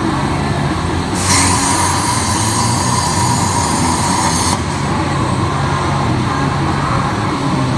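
Robotic plasma torch cutting steel pipe: a loud, steady hiss starts abruptly about a second in and cuts off suddenly some three seconds later. A steady low machinery hum runs underneath.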